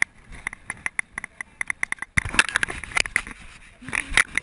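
Dry grass and dirt crunching and scraping right against a body-worn action camera, first as a run of quick sharp clicks, then louder rough scuffing from about two seconds in.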